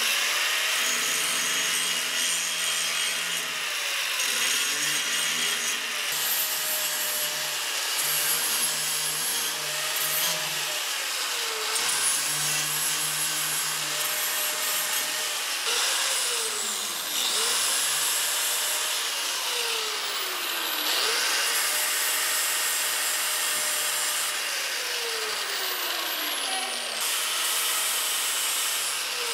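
Electric angle grinder grinding down steel welds. Its motor pitch dips and recovers several times as the disc is pressed into the metal.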